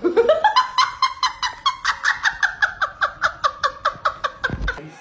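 A person laughing hard in a high, squeaky voice: a fast, even run of 'ha' pulses, about five a second, that opens with a rising squeal and grows weaker near the end.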